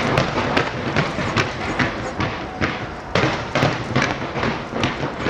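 Aerial fireworks exploding: a rapid, irregular string of sharp bangs, several a second, over a continuous rumble.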